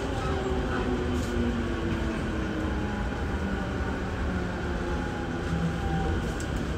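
Running noise heard aboard a JR Musashino Line electric train: a steady rumble of wheels on rail, with a faint whine that falls slowly in pitch.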